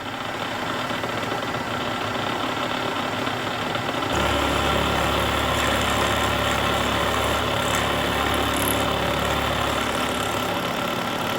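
Vertical milling machine running with a 1/4 inch end mill in the spindle, a steady machine noise. About four seconds in a deeper hum joins and the sound gets louder, then it drops back near the end.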